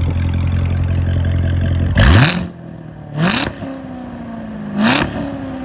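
Chevrolet Corvette Z06 V8 idling steadily, then revved three times in quick succession in sport mode. Each blip of the throttle sweeps the pitch up sharply, and the revs fall back slowly toward idle.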